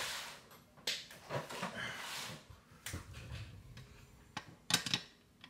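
Rustling and handling noise from hand tools being picked up and worked, among them a pair of metal pliers, with several separate sharp clicks. The loudest is a quick double click near the end.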